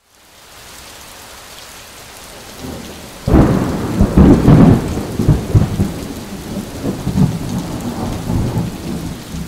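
Rain hissing steadily, then a sudden loud thunderclap about three seconds in that rolls on as a long, uneven rumble.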